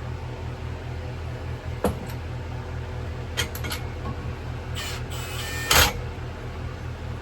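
A few sharp clicks and knocks, with a short rushing scrape and a louder knock in the second half, over a steady low hum.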